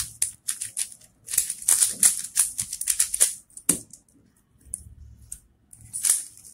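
A plastic 3x3 speed cube being turned fast, its layers clicking in quick clattering runs as it is scrambled. About three and a half seconds in the turning pauses, with a single low knock, and the clicking starts again near the end.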